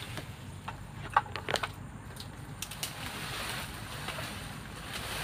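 Rustling of footsteps through grass and undergrowth, with a few light clicks.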